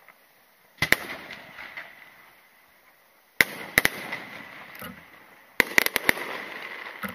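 Aerial firework shells bursting in a series of sharp bangs: one about a second in, two around three and a half seconds in, and a quick cluster near six seconds. Each bang is followed by crackling.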